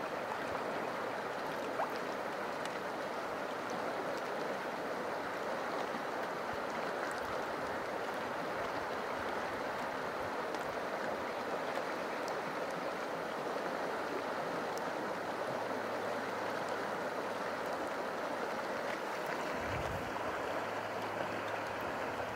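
Shallow river flowing over rocks: a steady, even rush of moving water. Near the end, a brief low rumble of wind on the microphone.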